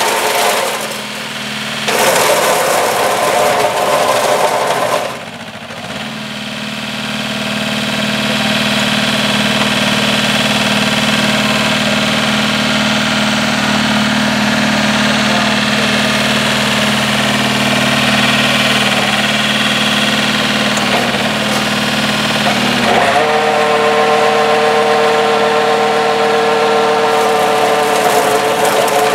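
Two-cylinder diesel engine of a mini tracked tractor running under load while driving a flail mower through brush. The engine note dips about a second in and again about five seconds in, runs steady, then shifts suddenly to a higher steady tone near the end.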